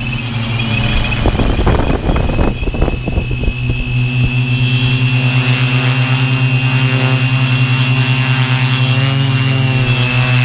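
Brushless motors and propellers of a Tarot 650-frame multirotor drone, heard from the camera on the airframe: a steady low hum with a high thin whine, pulsing evenly in loudness. Rough wind gusts hit the microphone about one to four seconds in.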